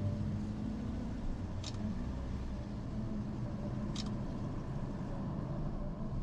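Steady low rumble of a SsangYong Korando Sports pickup truck heard from inside the cab while driving slowly, with two short clicks about two seconds apart.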